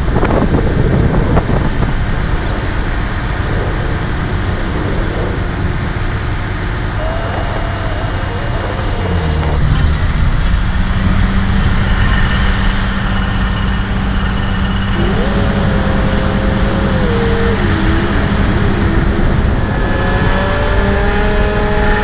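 Heavy construction machinery running: a steady diesel engine drone with pitched tones that slide up and down. The mix changes suddenly a few times.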